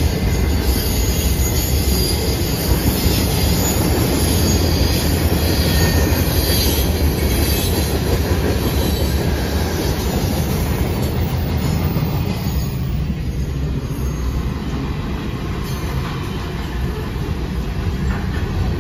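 Freight train cars (boxcars and covered hoppers) rolling steadily past on the track: heavy low rumble of wheels on rail, with faint high wheel squeal in the first half. The sound turns duller about twelve seconds in.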